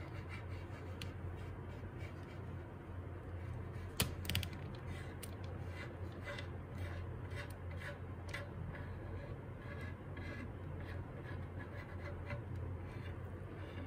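Faint scratching and light tapping as a thin wooden stick spreads red epoxy resin along the edge of a wooden board, with a couple of sharper clicks about four seconds in, over a steady low hum.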